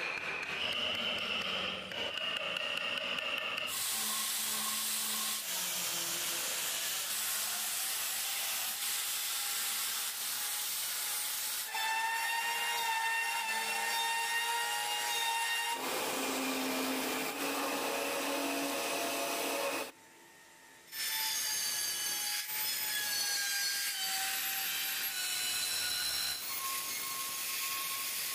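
High-speed electric power tool grinding or sanding wood: a steady hiss with a whining motor tone that shifts in pitch as it works. It stops for about a second around twenty seconds in, then runs again.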